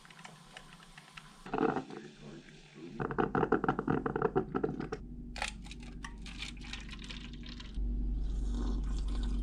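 Drip coffee maker brewing, gurgling and sputtering as hot water percolates up through it, loudest about three to five seconds in. A steady low hum comes in near the end.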